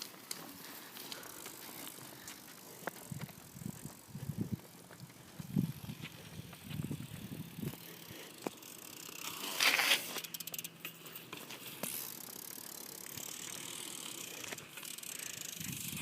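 Fly Bikes BMX bike being ridden, with scattered clicks and knocks from the bike and a brief louder hiss about ten seconds in.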